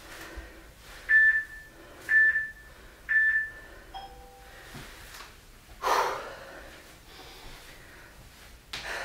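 Workout interval timer counting down with three short high beeps a second apart, then a lower chime about four seconds in marking the end of the exercise interval. A loud exhale comes about six seconds in.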